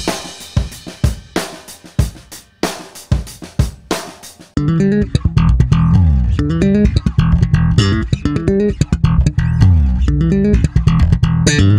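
Music: about four and a half seconds of separate percussive hits, each ringing out, then a loud driving bass-guitar line with drums. It cuts off abruptly at the end.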